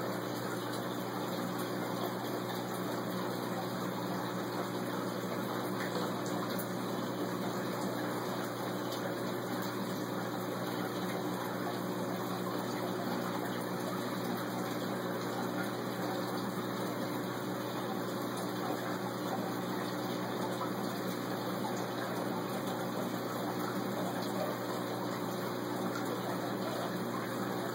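Steady rush of circulating water in a saltwater aquarium, with a low, even pump hum underneath.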